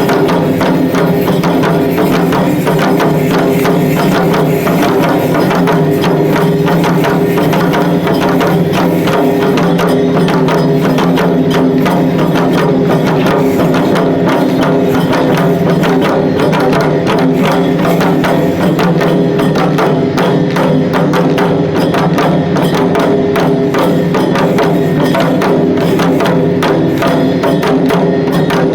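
Shishimai lion dance accompaniment: a drum beaten in a fast, even, unbroken rhythm, with sharp wooden clicks among the strokes and steady tones held underneath.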